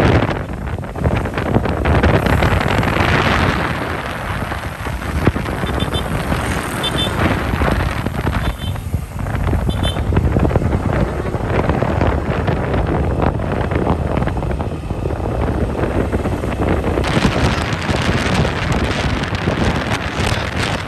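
Wind buffeting the microphone on a moving vehicle, a steady rushing noise that rises and falls, with a few faint high double beeps in the middle.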